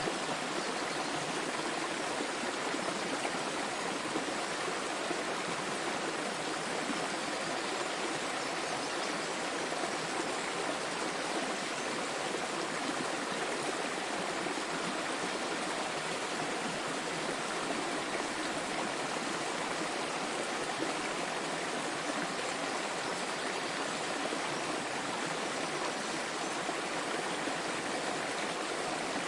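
Small waterfall: water falling and splashing with a steady, even rush.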